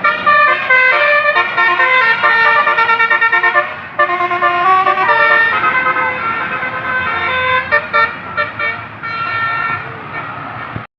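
Basuri telolet horn, a multi-trumpet musical horn, playing a melody of held and stepped notes, with a quick run of short repeated notes about three seconds in. It cuts off abruptly near the end.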